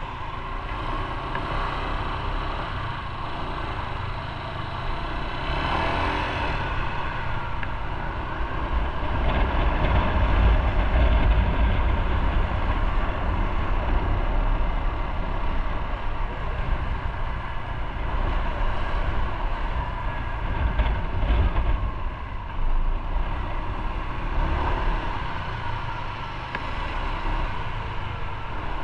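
Motorcycle engine running as the bike rides through city streets, under a steady rumble of road and wind noise that swells for a few seconds about ten and twenty seconds in.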